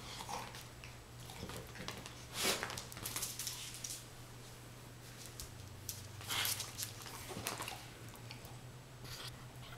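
An English bulldog and a Boston terrier puppy playing over a rubber ball toy on a rug: scattered light taps and short scuffling bursts, the loudest about two and a half and six and a half seconds in.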